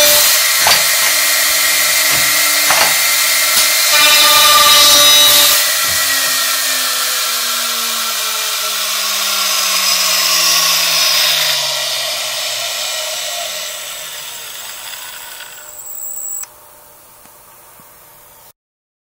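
High-speed router spindle motor of a CSR-300 CNC handrail drill running over a wooden rail, with a few sharp knocks in the first several seconds. The motor then winds down, its whine falling steadily in pitch and fading over about ten seconds, until the sound drops away suddenly near the end.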